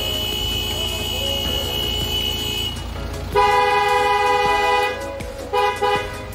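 A car horn gives one long blast of about a second and a half, starting a little past the middle, then two short toots. Before the horn a steady high tone sounds under it.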